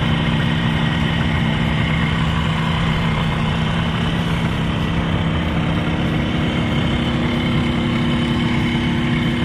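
An engine running steadily at an even speed: a low, unbroken hum.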